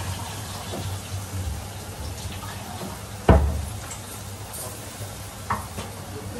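Kitchen work sounds: a steady low hum with light clinks, and one sharp, loud knock with a brief ring about three seconds in, made by something hard set down or struck at the counter or stove. A smaller click follows a couple of seconds later.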